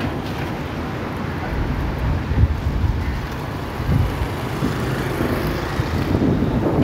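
Wind buffeting the microphone: a gusty low rumble that swells and eases.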